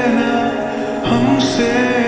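Slowed-down, reverb-heavy lofi edit of a Hindi pop love song playing: held chords washing together, with a chord change about a second in.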